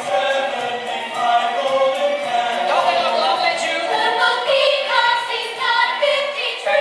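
Choir singing with musical backing, a stage-musical song.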